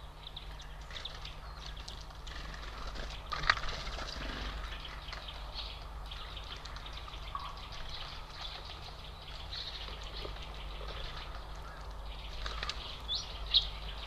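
Small songbirds chirping and calling, short scattered chirps, with sharp high calls near the end over a steady low hum. A single loud knock sounds about three and a half seconds in.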